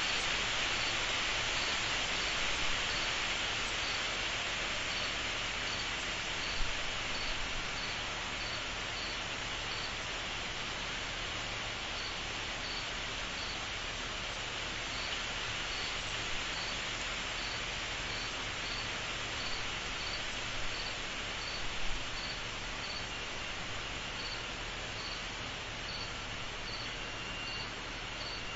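Insect chorus: a dense, steady high buzzing haze, with one insect chirping higher and evenly, about one and a half chirps a second, pausing briefly a couple of times. Near the end a thin steady trill joins in.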